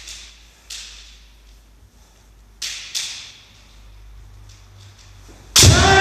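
Two sharp knocks about half a second apart in a quiet hall, then near the end a kendo practitioner's loud kiai shout, held and falling slightly in pitch, as the men (head) strike is launched.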